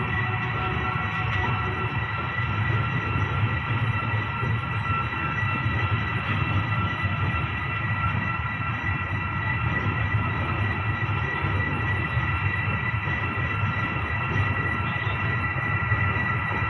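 Passenger train coach rolling slowly into the station, heard from its open doorway: a steady low rumble of the running train with a steady high-pitched squeal held over it.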